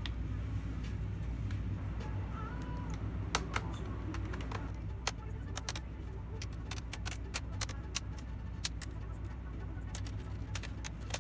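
Plastic screen bezel of an ASUS Vivobook F510U laptop being prised off by hand, its clips snapping loose in a run of sharp clicks from about three seconds in, over a steady low hum.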